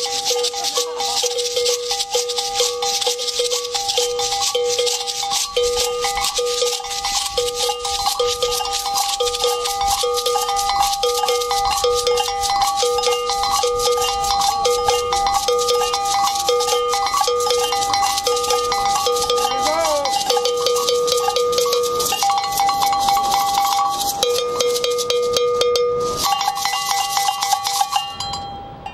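Group hand percussion: shekere gourd shakers rattling fast and continuously, with a ringing bell-like stroke keeping a steady pulse. It all stops sharply near the end.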